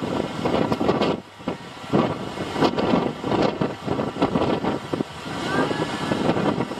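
Strong gusting wind buffeting the microphone, with waves splashing against a small fishing boat in rough sea; it dips briefly about a second in.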